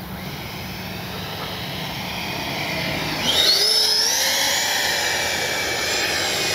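Freewing Mirage 2000 V2's 80 mm 12-blade electric ducted fan whining and growing steadily louder as the jet comes in. About three seconds in, it spools up with a sharply rising, louder whine as it is throttled up and climbs away.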